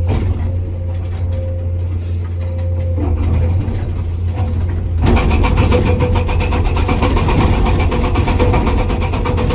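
Komatsu PC200 excavator's diesel engine running steadily, then about five seconds in its hydraulic breaker starts hammering hard rock in a rapid, even rhythm over the engine.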